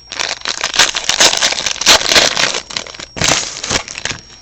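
Trading-card pack wrapper being torn open and crinkled by hand: a dense, loud crackling with sharp rips, easing off briefly about three seconds in before another loud burst.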